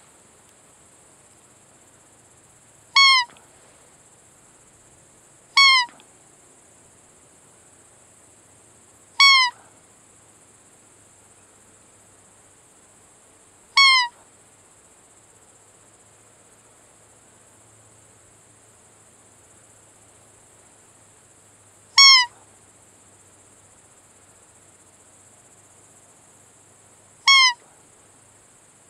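Hand-held roe deer call blown six times at uneven gaps of a few seconds, each a short high peep that falls slightly in pitch. It imitates the fiep of a doe in heat to lure a roe buck during the rut.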